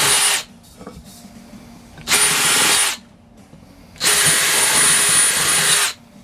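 Electric drill run in three short bursts, the last about two seconds long, with a steady motor whine, drilling out the holes of a headlight bucket to take its screws.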